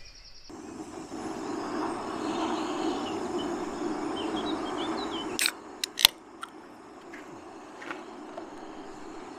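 A steady rushing noise that stops abruptly about five seconds in, followed by a few sharp clicks and then a fainter steady background noise.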